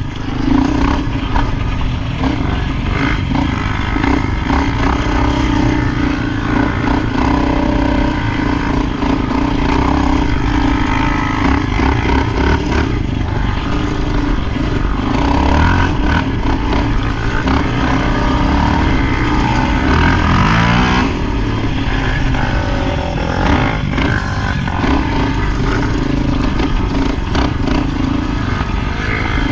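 ATV engine running steadily while riding, with wind and trail noise; its note dips and rises briefly about twenty seconds in as the throttle changes.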